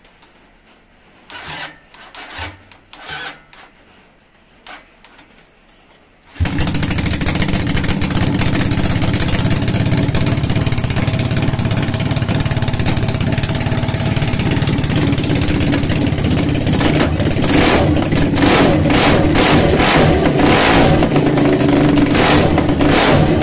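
Home-built 400cc V-twin made from a Honda Tiger engine, fed by a single carburettor, suddenly starts running about six seconds in after a few faint short sounds. It runs steadily, then from about two-thirds of the way through it is revved in quick repeated throttle blips.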